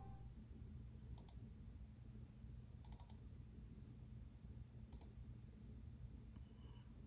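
Near silence with a few faint clicks, about one, three and five seconds in.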